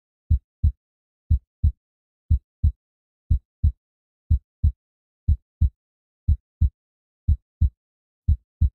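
Deep double thumps in a steady heartbeat-like rhythm, one pair about every second, with silence between the pairs.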